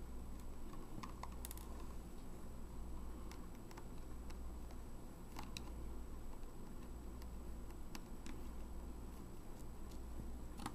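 Faint, irregular small clicks and ticks of a precision screwdriver turning out the tiny case screws on the bottom of a Pentax E50 compact digital camera.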